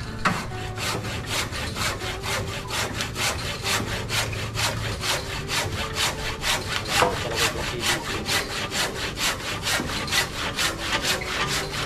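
Hand saw cutting through hard lumber in a steady back-and-forth rhythm of about four strokes a second.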